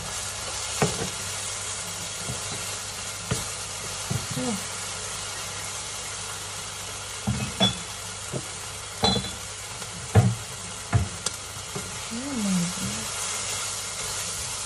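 Instant noodles with bacon, ham and carrot sizzling in a hot frying pan as they are stir-fried in soy and oyster sauce, a steady hiss broken by scattered sharp knocks and clatter, most of them in the middle of the stretch.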